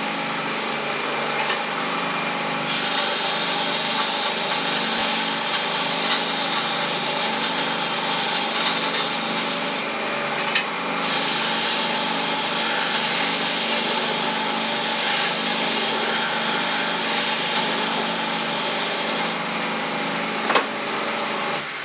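Belt grinder running with a steady motor hum. From about three seconds in, something is ground against the abrasive belt, adding a loud, harsh hiss. The hiss drops out briefly near the middle and stops a couple of seconds before the end.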